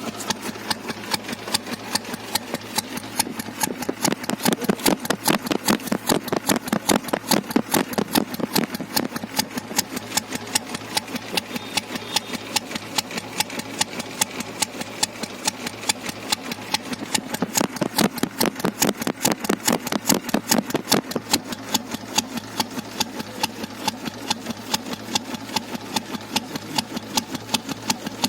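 Royal Enfield Bullet's single-cylinder four-stroke engine idling, its exhaust beating in an even, steady thump.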